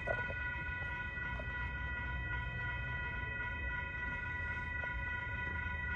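Grade crossing warning bell ringing steadily with a high, unbroken tone, over the low rumble of an approaching Union Pacific manifest freight train.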